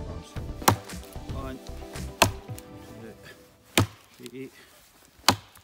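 Gränsfors Bruks Small Forest Axe chopping into a fallen branch: four sharp strikes about a second and a half apart. Background music fades out over the first three seconds.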